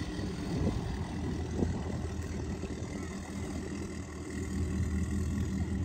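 Tow boat engine idling offscreen, a steady low hum.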